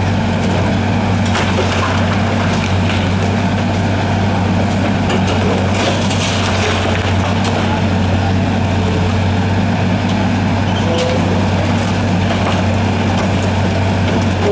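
Caterpillar 330B hydraulic excavator's diesel engine running steadily under load as its demolition grapple works at a building's steel roof beams, with a few scattered crunches and creaks of metal and concrete debris.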